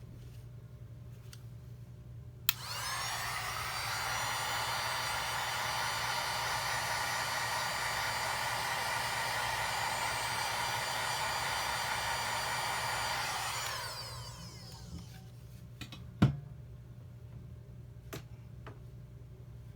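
Heat gun switched on with a click, its fan whining up and blowing steadily for about eleven seconds, then winding down as it is switched off; the hot air is softening the adhesive under the screen's components. A sharp knock a couple of seconds later.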